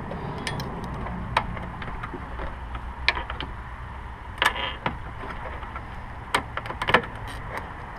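A plastic pry tool working a plastic push-in plug loose beside a Toyota FJ Cruiser's front turn signal: scattered sharp clicks and a short scrape, over a steady low rumble.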